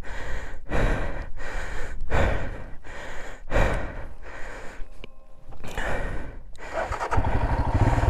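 Rapid, heavy breathing and gasping from a rider out of breath after lifting a fallen motorcycle, about one breath every 0.7 seconds. About seven seconds in, the motorcycle's engine starts and settles into a steady, evenly pulsing idle.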